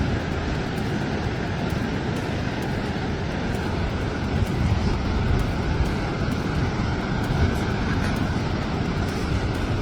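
Steady roar of a fast-flowing, flooded river.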